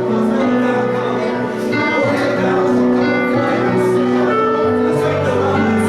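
Live church music: sustained instrumental chords with held notes, played through a hall's sound system during prayer.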